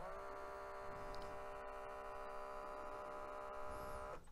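Mitsubishi HS-U760 S-VHS VCR mechanism running with its capstan spinning, giving a faint, steady, high whirring whine that settles slightly in pitch at first and stops shortly before the end. This whirring is typical of a missing or broken belt in the deck.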